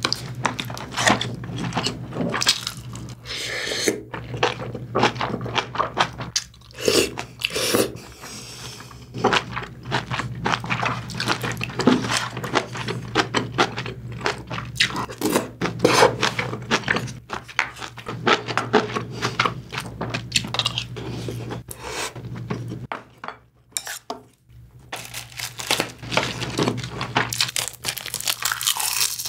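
Close-miked eating: chewing of braised kimchi and pork belly, with a wooden spoon knocking and scraping against the stew bowl, over a low steady hum. There is a brief quieter pause a little past two-thirds of the way through, then the eating sounds resume.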